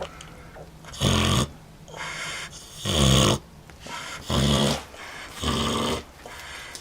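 A Vietnamese pot-bellied sow snoring in her sleep: four heavy rasping snores, about one every second and a half, with quieter breaths between.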